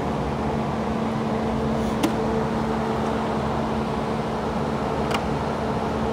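A steady mechanical hum holding one constant tone, with two light sharp clicks, about two and five seconds in.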